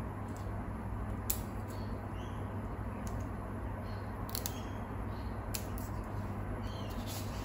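Light, scattered clicks of fingers and nails against a glass jar and its lid while a label is pressed onto it, about five in all, over a steady low background hum.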